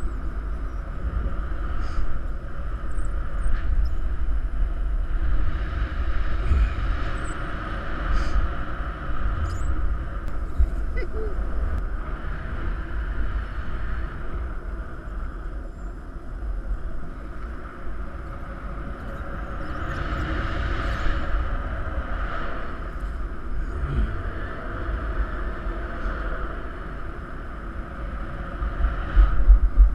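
Wind rushing over the microphone of a paraglider pilot in flight: a low buffeting rumble under a hiss that swells and fades every few seconds.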